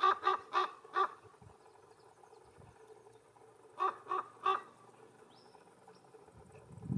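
Canarian raven (Corvus corax canariensis) giving short, hoarse croaks in quick runs: four about a quarter second apart at the start, then three more about four seconds in.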